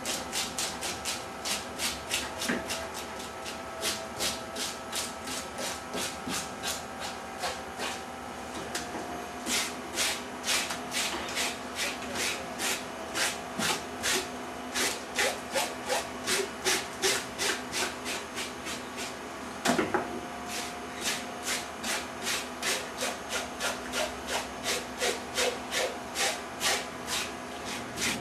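Handheld KAAG fish scaler scraping scales off a fish in quick, regular strokes, two to three a second, each a short rasp. A single heavier knock comes about twenty seconds in.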